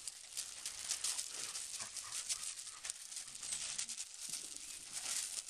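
Puppies scuffling and wrestling on gravel: a continuous scatter of short crunches and scrapes from paws and bodies on the stones.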